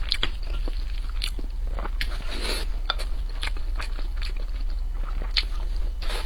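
Close-miked eating of mapo tofu over rice: chewing with wet mouth clicks and smacks at an irregular pace, and a louder slurping smear about two seconds in. A steady low hum runs underneath.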